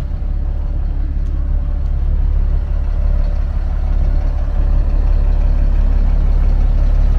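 Caterpillar 3126 inline-six diesel in a 2001 Freightliner FL70 truck idling steadily: a low drone that grows a little louder near the end.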